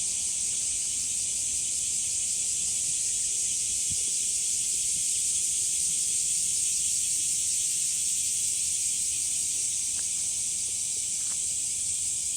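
Cicadas calling in chorus: a dense, steady, high-pitched drone that does not let up.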